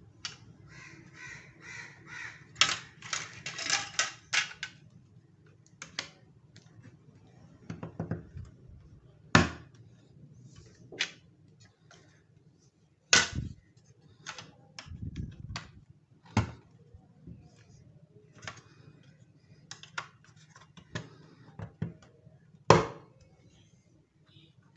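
Plastic toy train track pieces being handled, clicking and knocking together: a quick run of rattling clicks in the first few seconds, then scattered single clicks and knocks, the sharpest about nine, thirteen and twenty-three seconds in.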